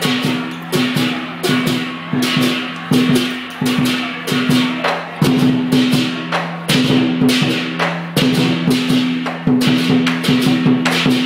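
Lion dance percussion played live and loud: a drum and crashing cymbals keep a steady beat, with a heavy hit about every 0.7 s and lighter strokes between, over a low ringing tone that carries from hit to hit.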